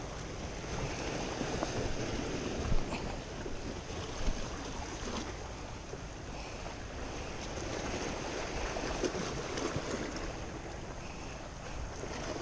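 Sea surf washing against a rocky shoreline, with wind buffeting the microphone. Two brief knocks stand out in the first few seconds.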